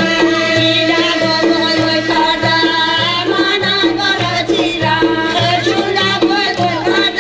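Loud amplified Azerbaijani folk music from PA speakers, a steady low beat about twice a second under a wavering melody, with a women's folk ensemble singing.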